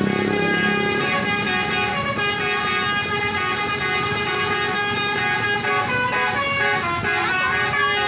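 Bus's roof-mounted multi-trumpet 'basuri' telolet horn playing a continuous melody, several notes sounding together and stepping from chord to chord.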